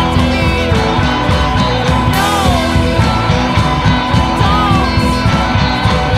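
Punk rock band recording playing: electric guitars and drums at full volume with a steady beat. A short pitch-bending figure comes back about every two and a half seconds.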